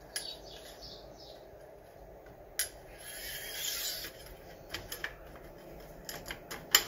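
Kingsong S18 plastic trolley handle being fitted onto the ends of its telescopic rails by hand: scattered clicks and knocks of plastic on metal, a brief scraping rub about three seconds in, and a sharp click just before the end.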